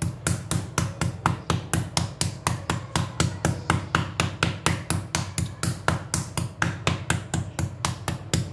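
Wooden meat mallet pounding slices of raw meat on a plastic cutting board, a steady run of dull knocks about three a second. The meat is being flattened so that its fibres crack and tenderise.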